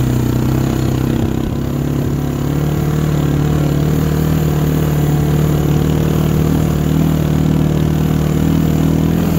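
Quad (ATV) engine running at a steady low speed while towing a sled through snow; its pitch rises slightly about two seconds in, then holds steady.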